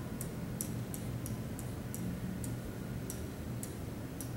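Pen tip tapping and clicking on a whiteboard as a long number is written digit by digit: a run of light, sharp ticks, irregular, about two or three a second.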